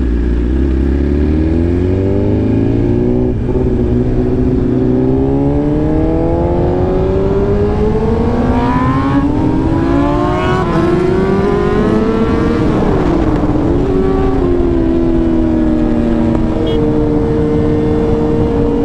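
Sport motorcycle engine heard while riding: its pitch climbs steadily for about twelve seconds as the bike accelerates, dips briefly, then holds steady at cruising speed, over constant wind noise.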